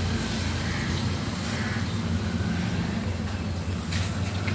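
Steady low mechanical hum with a few faint, brief high chirps.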